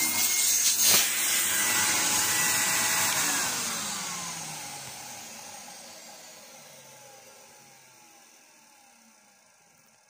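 Numatic Henry HVR200 vacuum motor switched off with a click about a second in, then spinning down. Its whine falls steadily in pitch and fades away over the following seconds.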